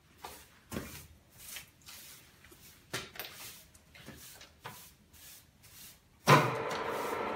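A few scattered light knocks, then about six seconds in a FUS22 milling machine is switched on: a sudden loud start, then the machine runs with a steady hum.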